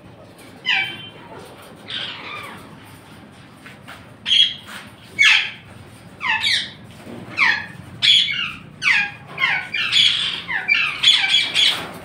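Parakeets squawking: short harsh calls, each falling in pitch. A couple come early, then from about four seconds in they follow one another quickly, crowding together toward the end.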